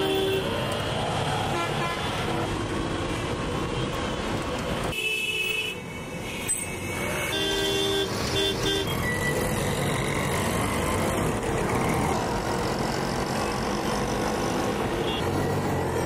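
Dense road traffic with engines running close by and several vehicle horn honks: one at the start, one about five seconds in, and a few short toots around eight seconds.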